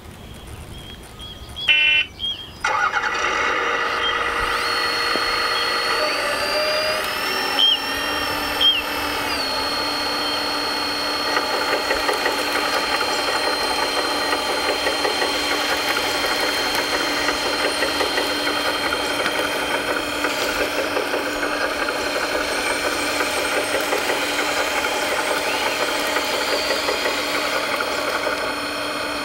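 Scale radio-controlled construction machine: a simulated diesel engine starts about two seconds in with a brief rattle, then runs steadily alongside the whine of its electric motors, which shifts in pitch a few times early on.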